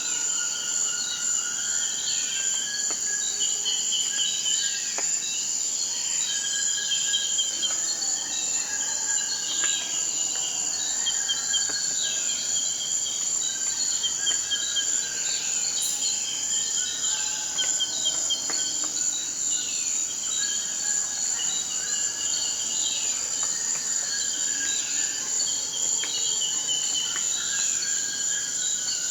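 Rainforest ambience: a steady, high-pitched insect drone, with many short chirping calls over it, some sliding down in pitch, repeating throughout.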